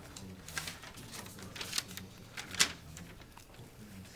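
Scattered short clicks and knocks over a steady low hum, the loudest a sharp click about two and a half seconds in.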